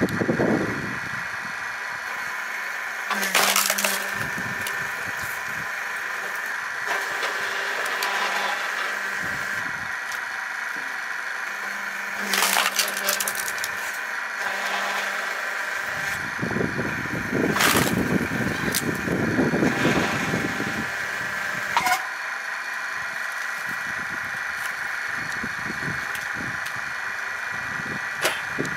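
Motor-driven firewood splitter running steadily while logs are split on it, with the wood cracking and splintering sharply several times as pieces break apart.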